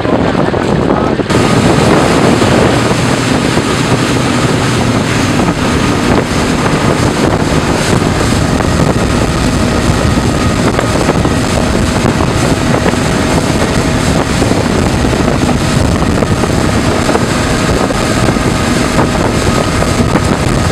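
Twin 250 hp outboard motors running at speed, a steady engine whine under a loud rush of wind on the microphone and water past the hull. The rush grows brighter and louder about a second in.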